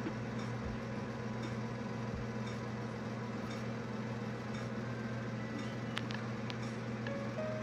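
Steady low machine hum, with a couple of light clicks about six seconds in.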